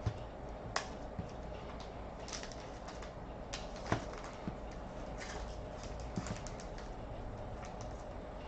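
Trading cards and their packaging being handled: scattered light clicks and short rustles, the sharpest click about four seconds in, over a steady low hum.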